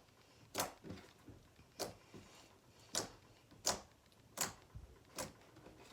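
Large glossy bead-filled slime being pressed and poked by hand, giving a string of short sticky clicks and pops, roughly one or two a second.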